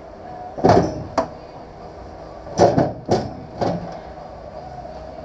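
Knocks of a tubular steel roll cage being pushed and bumped up into a car's roof: a pair of knocks, then a run of three about half a second apart.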